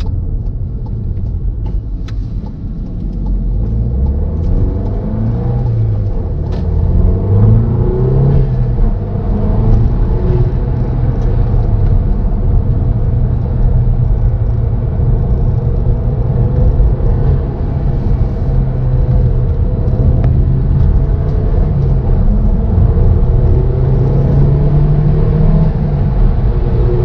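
Mk7 Volkswagen GTI's turbocharged 2.0-litre four-cylinder, fitted with an aftermarket Unitronic turbo inlet elbow, heard from inside the cabin as the car accelerates onto the highway. The engine note climbs in pitch in steps through gear changes in the first several seconds, then settles to a steady cruise and climbs again near the end.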